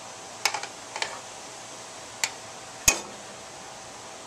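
Metal spoon knocking against a metal cooking pot of gravy: four sharp clinks, the loudest, a heavier knock with a short ring, just under three seconds in.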